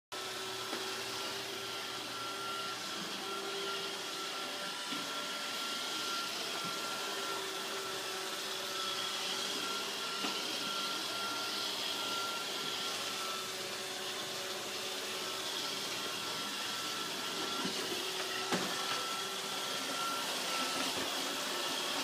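Roomba robot vacuum running: a steady whir of its motor and brushes with a thin, constant whine on top, and a few light knocks.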